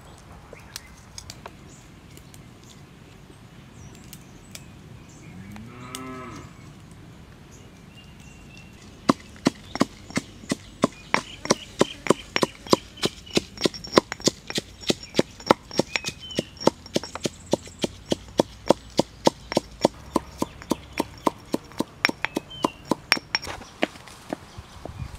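A cow moos once about six seconds in. From about nine seconds in, a stone pestle pounds spices in a stone mortar in a steady rhythm of about three sharp knocks a second.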